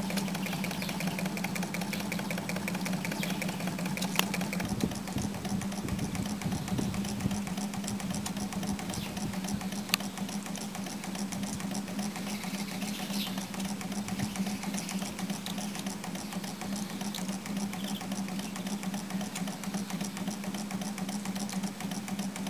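Small solar-powered Stirling (hot air) engine running steadily and driving a small piston water pump: a steady hum under a fast, even mechanical rattle, with a couple of sharp clicks.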